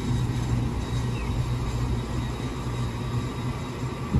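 Taiwan Railways EMU3000 electric multiple unit starting to pull away from the platform, with a steady low hum and a faint, thin high whine over it.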